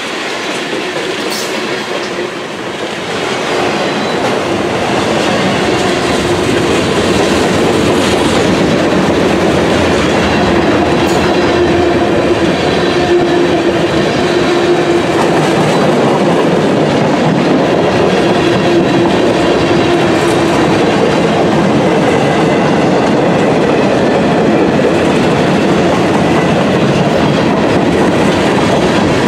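A CSX freight train's tank cars and covered hoppers rolling past close by: steady, loud noise of steel wheels on the rails and the cars rattling, a little quieter for the first few seconds.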